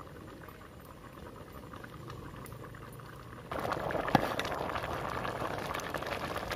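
Khichdi boiling in an aluminium pot, a steady bubbling that grows much louder about three and a half seconds in. A single sharp clink of a ladle against the pot follows about half a second later.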